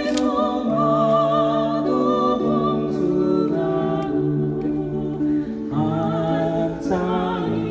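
Live slow song, sung into microphones over acoustic guitar, with long held notes and vibrato.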